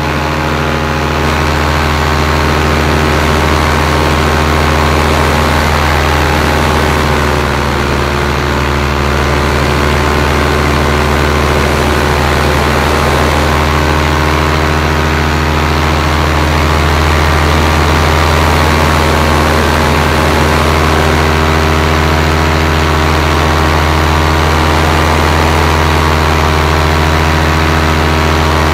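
Paramotor engine and propeller running steadily in flight, a loud constant drone heard close from the pilot's harness.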